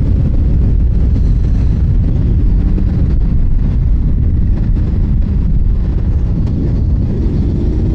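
Honda VFR800's V4 engine running at a steady cruise while riding, largely buried under loud, steady wind rumble on the microphone.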